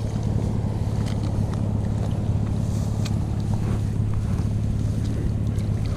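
A steady low mechanical hum, like a motor running at an even speed, with a light hiss over it.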